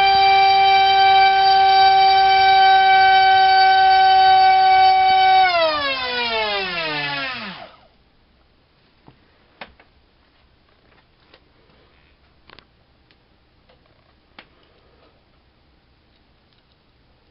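A2212 2700kV brushless motor spinning a 6x4 TGS propeller flat out on a 3S pack: a loud steady whine that falls in pitch and dies away over about two seconds as the power is cut, followed by a few faint clicks. The prop is a load the owner thinks too much for this motor.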